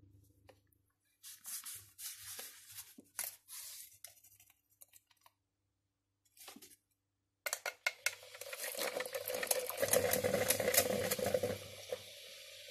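Coffee being poured and rustled into a paper filter, in short bursts. Then, about halfway through, an Electrolux drip coffee maker brewing: a continuous hissing and gurgling with crackling pops as hot water bubbles through the grounds.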